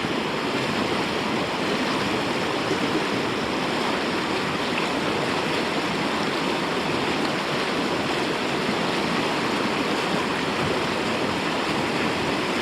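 A swollen river rushing over rocks: a steady, unbroken wash of water noise.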